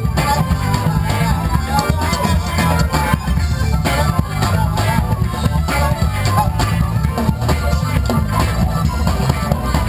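Live rock band playing amplified through a PA: electric guitars over a steady drum-kit beat with heavy bass.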